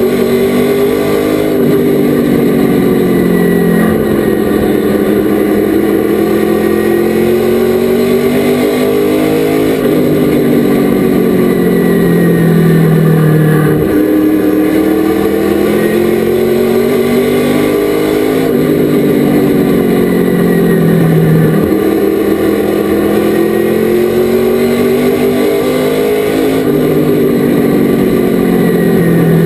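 Race truck's engine lapping a short oval at racing speed. Its pitch climbs for several seconds as it accelerates down each straight, then drops sharply as the throttle is lifted for the turns, repeating about every seven to eight seconds.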